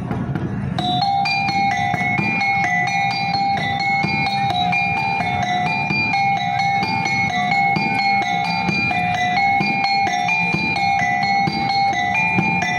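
Monkey-show percussion music. A metallic, bell-like two-note pattern is struck over and over at a steady pace over a low drum beat, and starts about a second in.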